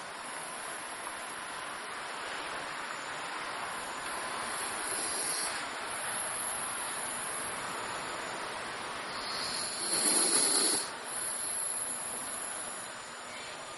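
A dog snoring: long, hissing breaths of a few seconds each, with one louder snore about ten seconds in.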